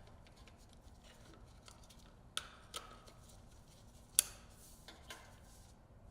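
A few faint, sharp plastic clicks and taps, the loudest about four seconds in: electrical connectors being snapped together and wiring harness clips being secured on a motorcycle's upper battery tray.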